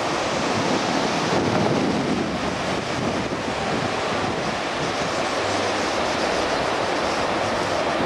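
Surf washing onto a sandy beach with wind buffeting the microphone: a steady rushing noise.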